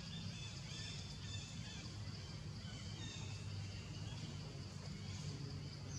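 Outdoor ambience: faint, scattered bird chirps over a steady low hum.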